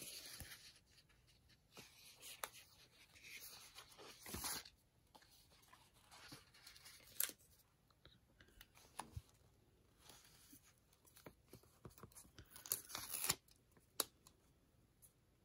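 Faint rustling of sticker paper: a planner sticker is peeled from its backing sheet and pressed onto a paper planner page, in several short scratchy bursts with a few small clicks.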